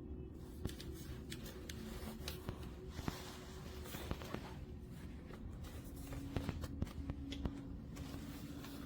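Scattered light clicks and handling noise, irregularly spaced, over a steady low hum.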